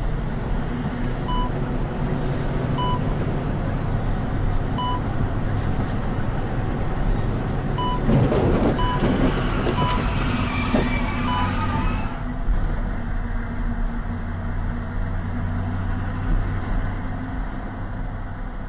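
Semi-truck engine running steadily, heard from inside the cab as a low drone while driving. Short electronic alert beeps sound at irregular intervals over the first twelve seconds, and there is a louder, rougher stretch about eight to eleven seconds in.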